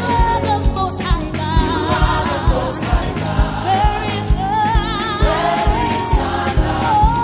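Live gospel praise music: a lead singer and choir singing together over a band, with a steady drum beat of about two strokes a second.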